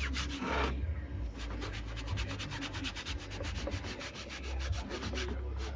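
Rapid back-and-forth scrubbing, about seven strokes a second, starting about a second in, as dirt is cleaned off a surface.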